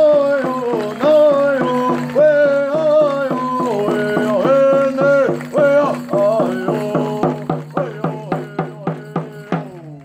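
Hoop dance song: a voice singing long, wavering notes over a steady drumbeat and a held low drone. The drumbeats quicken over the last few seconds and the song stops abruptly near the end.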